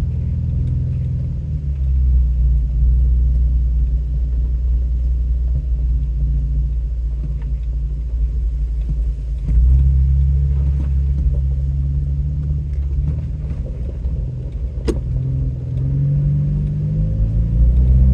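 Off-road vehicle's engine and drivetrain heard from inside the cab while driving slowly over a rough dirt road: a steady low rumble that shifts in pitch with the throttle, with light rattles and a sharp click about 15 seconds in.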